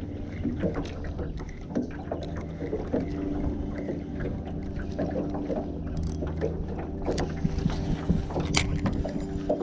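A boat's motor humming steadily, with scattered light clicks and knocks over it.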